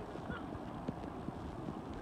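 Muffled underwater sound picked up by a submerged camera: a steady low rumble of moving water with many small crackles and ticks.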